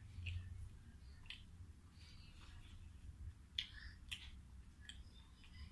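Quiet eating of a raw salad by hand: a few soft, scattered mouth clicks and crunches over a low background hum.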